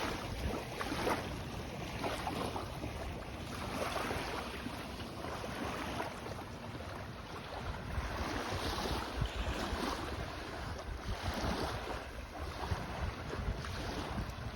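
Wind buffeting the microphone over small waves washing on a sandy shore, with soft swells coming and going.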